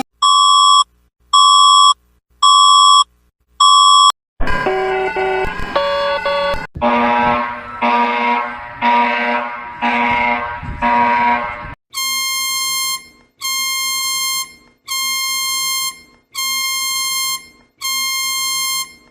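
A run of electronic emergency-alert alarm tones. There are four short beeps about a second apart, then a couple of seconds of stepped chime-like notes, then six swelling buzzer pulses. It ends with five long, harsh beeps, each about a second long.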